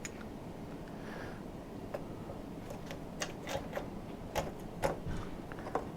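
Irregular light metallic clicks and ticks of a chainsaw's saw chain and guide bar being handled and fitted by hand, the chain links knocking against the bar and metal parts.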